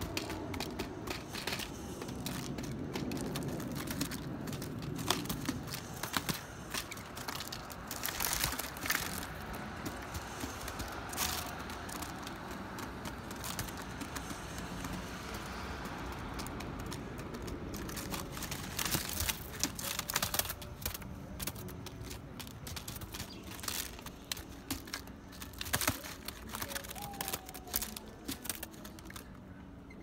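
Mourning doves pecking and shuffling on aluminium foil covering a window ledge: irregular crinkling and sharp taps. A low rumble runs under it for the first several seconds.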